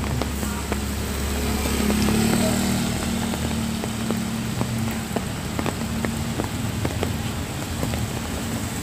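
Light rain falling on wet pavement, with scattered sharp drop taps close by, over the steady low running of a motor vehicle engine that is loudest about two seconds in.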